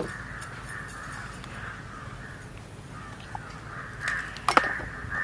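Crows cawing repeatedly in the background, with a sharp click or knock about four and a half seconds in.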